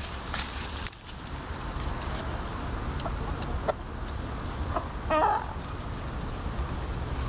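Domestic hens clucking: a few short soft clucks, then one louder hen call about five seconds in, over a steady low rumble.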